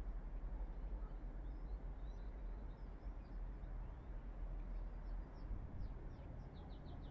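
Small birds chirping faintly, with a quick run of short chirps near the end, over a steady low rumble.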